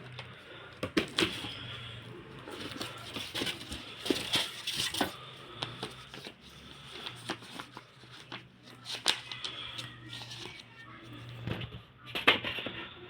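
A cassette player being handled: a string of sharp clicks and knocks with rustling, over a low steady hum.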